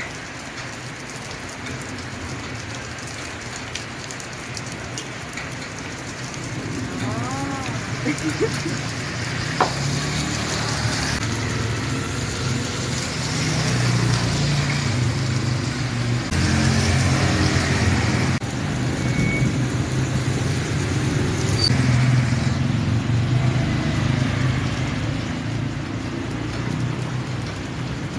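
Steady rain falling, with road traffic running on a wet street; a low engine rumble builds and grows louder from about a third of the way in.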